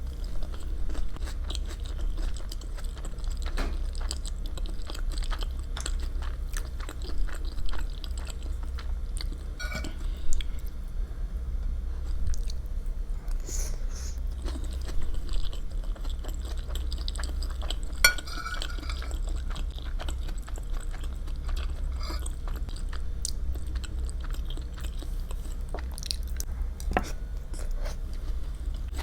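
Close-miked chewing of food, with wet mouth clicks and occasional knocks of cutlery on a dish, over a steady low hum.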